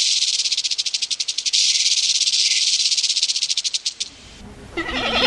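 A loud, high, dry buzzing rattle from an animal, pulsing very rapidly, that stops abruptly about four seconds in. Near the end a goat starts bleating.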